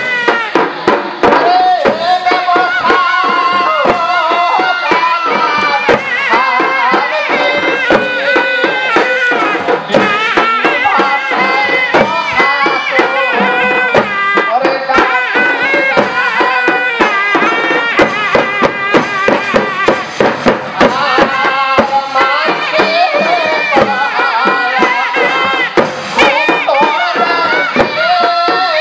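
Koch Rajbongshi folk music for the Kamdev dance: a wavering melody line over fast, dense drum strokes.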